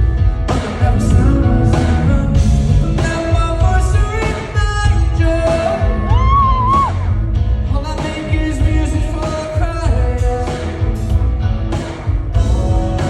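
Live pop-rock band playing through a theater's sound system: a steady drum beat and heavy bass under a singer, with a sliding vocal note about halfway through.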